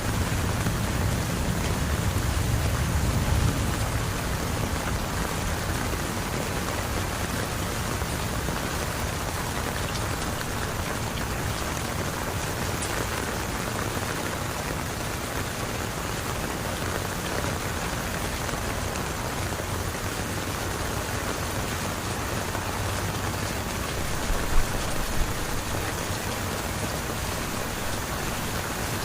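Heavy rain falling steadily in a continuous hiss of drops. A low rumble under it dies away about three seconds in, and there are a couple of brief thumps near the end.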